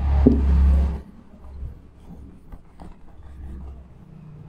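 A loud low rumble lasting about a second, then a faint steady low hum with a few soft clicks.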